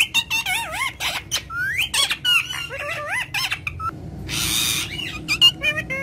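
Indian ringneck parakeet chattering and squawking in quick wavering, rising calls, mixed with sharp clicks of its beak on a plastic mirror frame. About four seconds in there is a brief harsh hiss.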